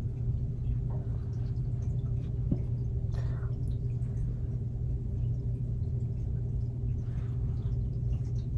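Steady low hum with a faint, thin steady tone above it, and a few faint soft sounds of a hot drink being sipped from a paper cup.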